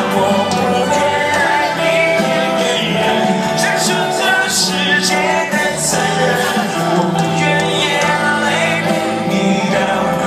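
A rock band playing live with a male lead singer singing over the band and guitar, heard through the concert PA from within the crowd.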